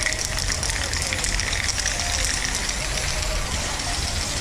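Aerosol spray-paint can hissing as paint is sprayed onto a wall, over a steady low rumble.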